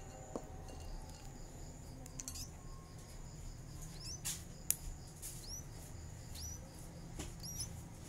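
Nestling birds giving faint, thin, high peeps: short rising chirps repeated several times from about four seconds in, with one sharp click near the middle, over a low steady hum.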